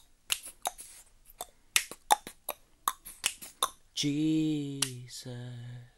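Finger snaps keeping a loose beat, about three a second. About four seconds in, a man's voice sings two long, low held notes, the first sliding slightly down.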